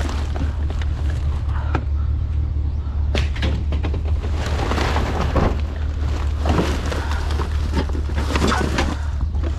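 Rummaging through a box of discarded items: rustling and irregular knocks and clatters as things are moved about, busiest in the second half, over a steady low rumble.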